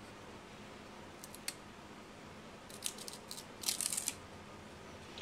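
Fingers rubbing and peeling soaked paper backing off an aluminium faceplate to uncover toner-transfer labels: a few short, faint scratchy rustles, from about a second in until about four seconds in.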